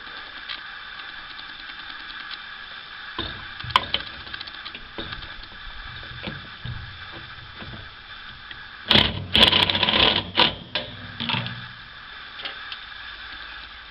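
Screws being driven into the sheet-metal flange to mount a furnace draft fan: light clicks and taps of parts, then about two seconds of a driver spinning a screw home in short bursts near the middle, over a steady faint hum.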